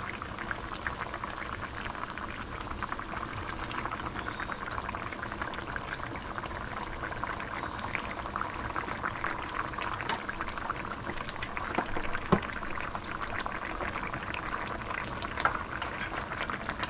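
Tomato-based stew sauce boiling hard in a wide stainless steel pan, a steady dense bubbling and popping. A single sharp click stands out about twelve seconds in.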